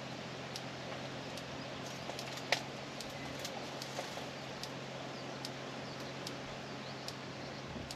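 Quiet outdoor ambience: a steady low hum and hiss with scattered light ticks, one sharper click about two and a half seconds in, and faint bird chirps around the middle.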